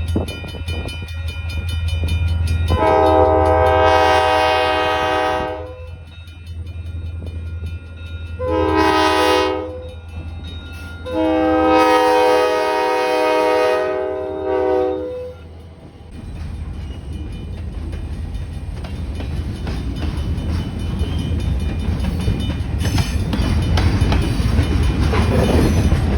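Diesel locomotive horn sounding for a grade crossing: a long blast, a short one and another long one, over the low running of the engine. After about sixteen seconds the horn stops and a rumbling, rattling clatter of the freight train rolling past builds steadily louder.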